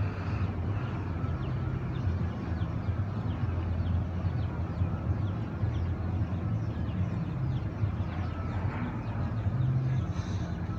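Boat engines running with a steady low rumble, with faint ticking above it.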